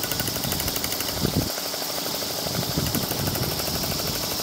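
Stuart 10H model single-cylinder steam engine running backwards on live steam: a fast, even exhaust beat over a steady steam hiss. A louder knock about a second in comes from its splash guard.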